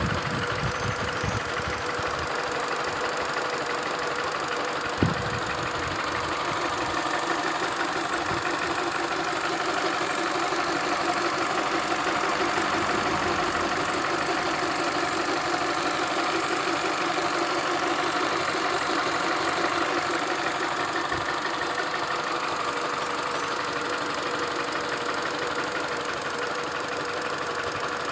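Peugeot 207 SW engine idling steadily, with the unusual engine noise that the owner is showing as a fault of unknown cause. One sharp click about five seconds in.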